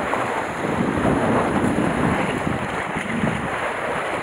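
Sea waves washing and splashing around concrete breakwater tetrapods, with wind buffeting the microphone.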